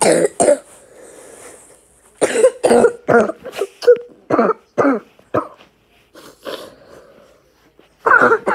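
A child coughing in a string of short, loud coughs. There are a couple at first, then a quick run of about eight a few seconds in, and more near the end.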